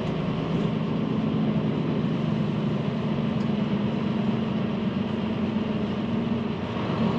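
DAF XD 450 truck's six-cylinder diesel engine and road noise heard from inside the cab while driving at town speed: a steady low drone that eases off near the end.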